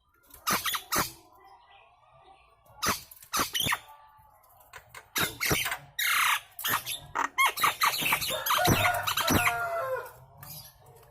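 Nias hill myna calling loudly in clusters of sharp screeches and clear whistles, with a falling squawk about six seconds in and the busiest run of calls in the second half.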